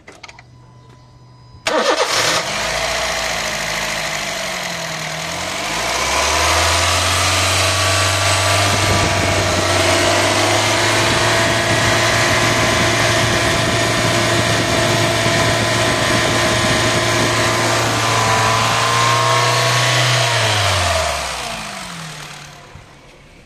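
Honda car engine started about two seconds in, settling into a steady idle, then switched off near the end, its pitch sinking as it runs down.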